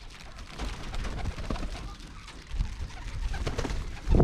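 Young racing pigeons cooing, with scattered light clicks and a loud low thump near the end.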